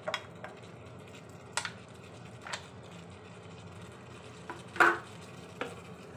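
Wooden spatula knocking and scraping against a black wok-style electric pan as fried tempe cubes are tipped in and turned over in the sauce: about five separate knocks, the loudest a little before five seconds in.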